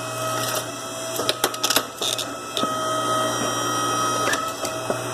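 Small electric motor running steadily, with a few sharp clicks and knocks of metal being handled, as scrap copper wire is worked.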